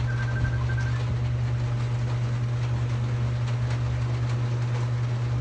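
Tattoo machine running with a steady low buzz.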